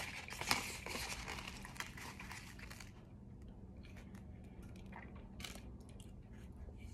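Crackling and crunching from a solid-crunch powder mix, dense for about the first three seconds, then thinning to scattered small crackles.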